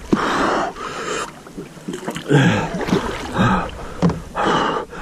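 A person breathing hard in excited puffs and gasps, about five breaths roughly a second apart, some with a short grunt in them.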